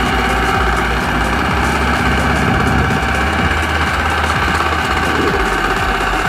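Walking tractor's single-cylinder diesel engine running steadily under load, with a fast, even chugging beat, as it pulls a loaded trailer out of mud.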